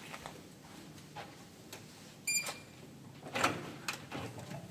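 Faint scattered clicks and knocks, with a short, high electronic beep about two seconds in and a brief clatter of handling noises a second later.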